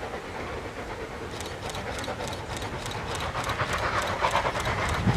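Steam locomotive working a train on the approach, its exhaust chuffing in a steady rhythm of about four beats a second that comes in about a second and a half in and grows louder as the engine nears.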